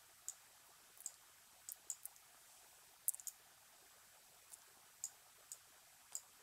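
Faint computer mouse clicks, about a dozen short sharp clicks in irregular bunches, as chess pieces are moved in a fast online game.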